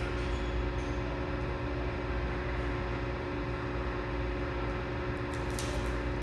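Steady low machine hum with a few fixed tones, and a short hiss near the end.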